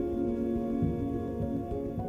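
Background music: soft, slow ambient instrumental with sustained chords.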